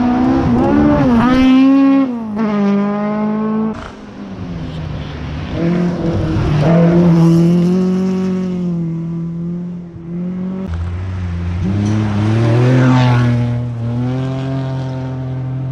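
Rally cars at full throttle on a gravel stage, engines revving up through gear changes as they pass close by one after another. Three cars come through, the loudest moments about a second in, about seven seconds in and about thirteen seconds in.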